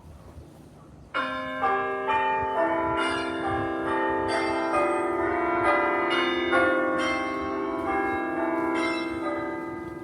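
Bell chimes play a short melody of overlapping ringing notes. They start suddenly about a second in, change note about every half second, and fade out near the end.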